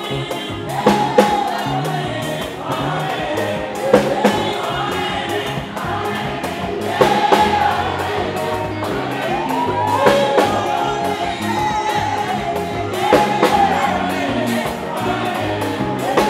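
Live gospel music: a woman leads the singing with backing voices joining in, over electric bass guitar and drums.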